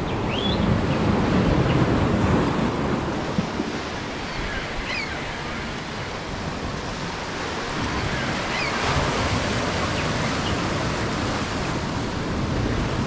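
Atlantic surf breaking and washing over the rocks, swelling twice, at about two seconds in and again near ten seconds, with a few faint short high chirps over it.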